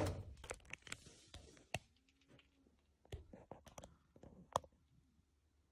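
Scattered light clicks and knocks from someone moving and handling things under a shed, among plastic crates and a corrugated-metal wall, with a brief louder rustle at the very start and a sharper knock about four and a half seconds in.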